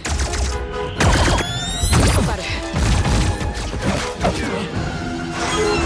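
Sci-fi gunfight sound effects from a film soundtrack: energy-weapon blasts, crashes and impacts, with sharp hits about once a second and whistling zaps, over score music.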